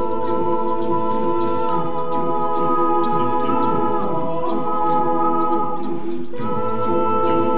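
Male a cappella group holding wordless sustained chords over a steady vocal-percussion beat. The chord shifts a couple of times and breaks off briefly about six seconds in before coming back.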